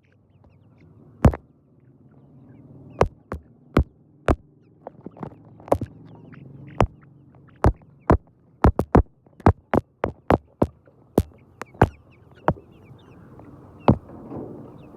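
Chickens pecking at feed on a hard surface: many sharp, irregular taps, one to three a second, over a low steady hum, with faint high chirps behind.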